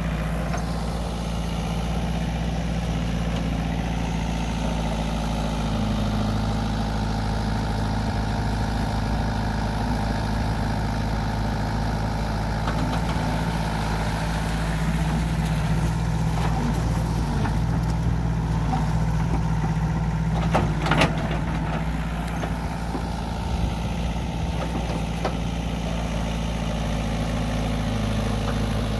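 Sumitomo S160 mini excavator's diesel engine running steadily as it digs a ditch through wet mud, with a few brief knocks about two-thirds of the way through.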